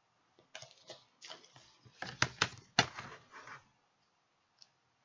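Small paper advent booklet being handled and opened by hand: a run of rustles and sharp clicks over about three seconds, the loudest clicks in the middle.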